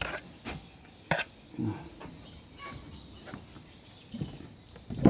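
Insects chirring steadily in the background, with a few sharp clicks and soft knocks from close handling.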